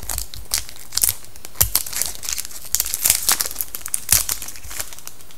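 Plastic-foil wrapper of a 2011-12 SP Game Used hockey card pack being torn open and crumpled by hand, a run of irregular crinkles and crackles that dies away near the end.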